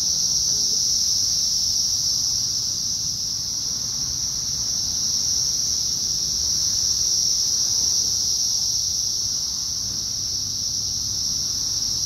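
Loud chorus of Brood X periodical cicadas: a steady, high-pitched drone that holds without a break.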